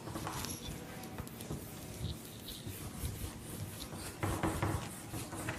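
A felt whiteboard duster rubbing marker ink off a whiteboard, in faint, uneven wiping strokes. One louder stroke comes about four seconds in.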